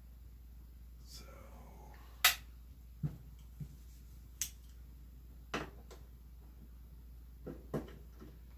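A faint scrape, then a series of about seven sharp metallic clicks and taps at uneven intervals, the loudest about two seconds in, as a 3/16 wrench backs a fastener out of the rear of a Tommy gun clone's receiver.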